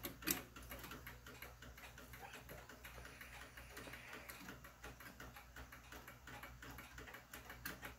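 Faint, irregular clicking and tapping from handling an 1880s Ansonia clock, whose movement is not running, over a low steady hum.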